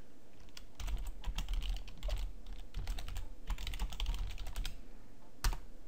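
Typing on a computer keyboard: a run of quick key clicks for about four seconds, then one louder keystroke near the end.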